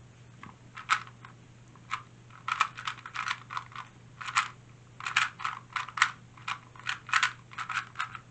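A 2x2 speed cube's layers being turned fast during a timed solve: rapid plastic clicking in quick clusters with short pauses between.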